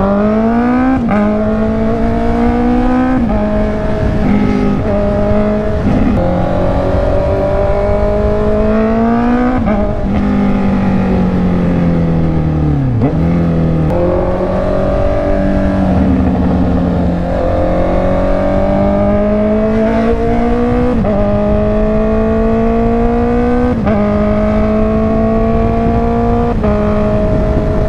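Honda CB650R's inline-four engine pulling hard through the gears while riding: its pitch climbs and drops back at each upshift, sags once midway as the throttle eases, then climbs again. Steady wind and road rush lies underneath.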